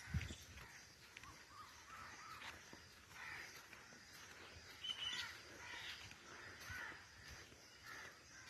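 Faint birdsong: several birds calling, with scattered short chirps and a few harsher calls.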